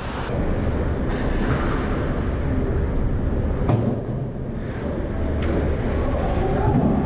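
Ice hockey game on the ice: a steady rumble and scrape of skates on the ice, with a sharp clack about halfway through and a few fainter knocks.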